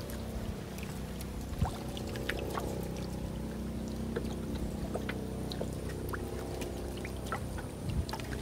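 Water trickling and splashing lightly around a small wooden boat as a paddle works the water, with scattered small drips and clicks over a steady low hum.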